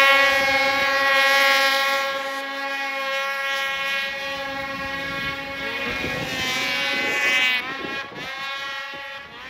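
Snowmobile engine held at high revs, a steady high-pitched whine as the sled churns through deep snow. The pitch wavers and drops about six to eight seconds in, then the engine fades near the end.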